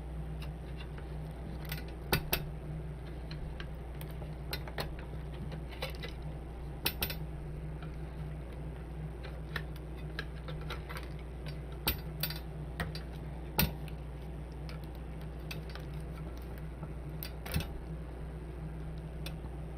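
Scattered light metallic clicks and taps of small tools and parts handled while a bench power supply is taken apart, a dozen or so at uneven intervals, over a steady low hum.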